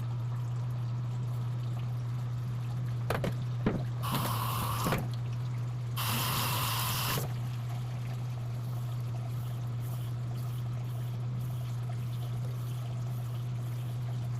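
Water splashed onto a Shapton Glass whetstone in two short hissing bursts about two seconds apart, after a few light clicks, over a steady low hum.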